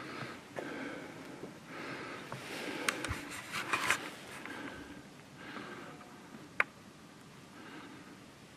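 A person breathing audibly through the nose, a breath every second or so. A few sharp clicks come around the middle, and one single sharp click comes near the end.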